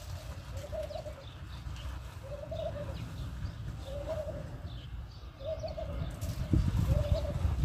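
A dove cooing over and over, one short note about every second and a half. Low rumbling and knocking sounds grow louder near the end.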